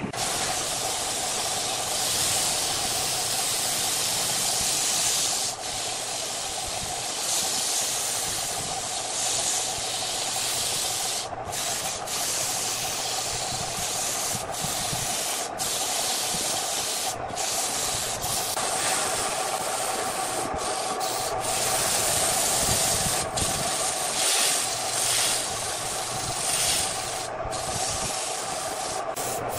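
Sandpaper hissing against a wooden vase spinning on a wood lathe, with the lathe's electric motor humming steadily underneath. The hiss wavers in loudness and briefly drops out a number of times.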